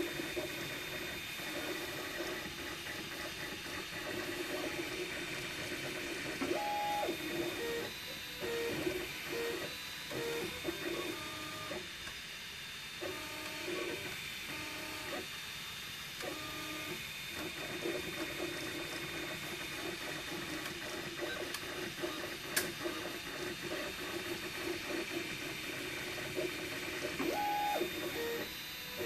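MakerBot Replicator 2 desktop 3D printer printing in PLA: its stepper motors whine in short tones that jump in pitch as the extruder head moves back and forth, over a steady fan hum. A single sharp click about three-quarters of the way through.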